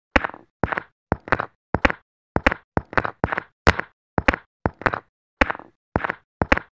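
A fast series of knocks from a mallet striking concrete edging blocks as they are set into the row, about three a second and often in close pairs.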